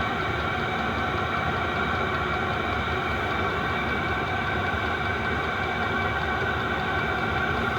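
Diesel heater running steadily while warming up: an even rushing noise from its fan and burner with a steady hum on top, unchanging throughout.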